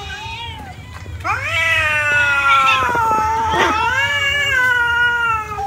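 A crowd of cats meowing at once: a softer meow at first, then from about a second in several cats giving loud, long drawn-out meows that overlap.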